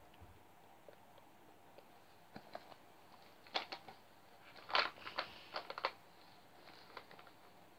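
A makeup bag being handled and rummaged through: scattered short rustles and clicks, busiest from about three and a half to six seconds in.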